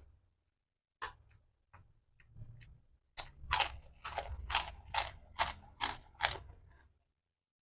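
Metal spoon clicking against a plate while eating: a few light clicks, then a run of about eight sharper clicks, roughly three a second.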